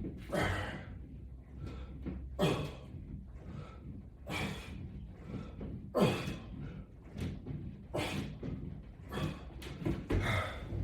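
Repetitions of a resistance-band exercise on a wall-mounted latch bar: a short, noisy sound about every two seconds, six in all, keeping time with the pulls.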